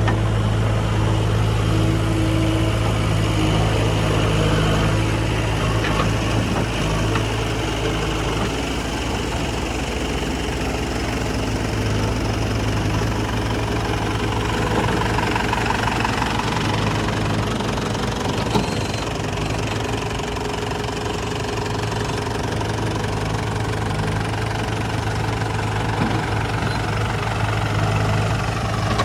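Heavy diesel engine running steadily at low revs, with a couple of brief sharp knocks partway through.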